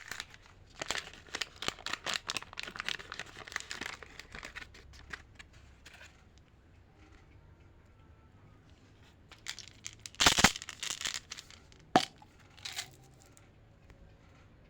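Candy and chocolate wrappers being crinkled and torn open by hand. Dense crackling for the first few seconds, then a quieter stretch, a louder tearing rustle about ten seconds in, and a sharp snap at twelve seconds.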